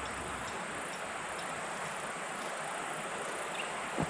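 Steady hiss of insects calling in the grass and bush, with a few faint high chirps. A single sharp knock sounds near the end.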